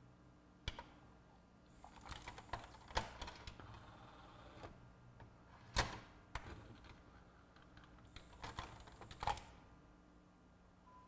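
Pioneer PD-DM802 magazine CD changer mechanism cycling a disc: a small motor whines in short runs, with a rattle of clicks and clacks from the gears and levers, the sharpest clack about six seconds in. With the known-good magazine the mechanism is working normally.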